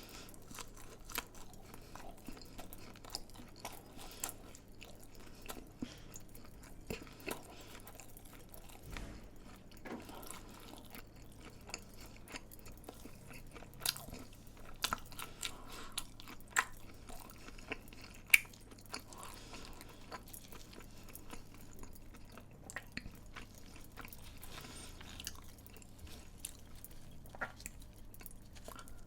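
Close-miked chewing and biting of crunchy fried food, with a steady run of sharp crackling crunches and one louder crunch about two thirds of the way through.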